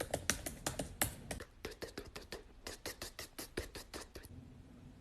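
A person making a rapid, irregular run of sharp percussive mouth clicks and pops, beatbox-style, as a practice sound effect; it stops abruptly near the end.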